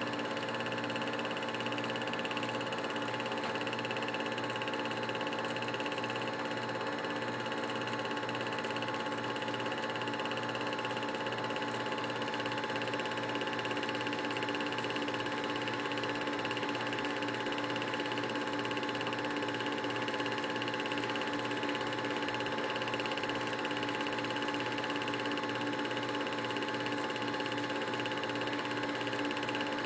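Film projector running with a steady mechanical whir and hum, a fine rapid flutter underneath, unchanging throughout.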